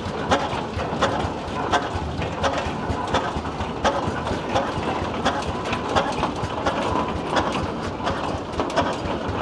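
Large antique gas tractor's slow-turning engine running, its exhaust firing in sharp, uneven beats about two or three a second.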